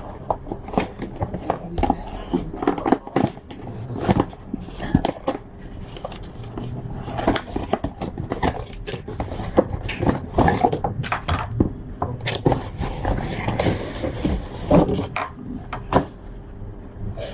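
A boxed baking tool set being opened and unpacked by hand: an irregular run of clicks, knocks and scraping from the cardboard colour box, its packaging and the tools inside.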